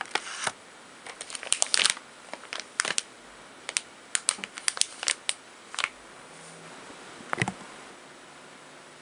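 Irregular crinkling and sharp light clicks of plastic packaging being handled and set down on a table, with a duller knock near the end.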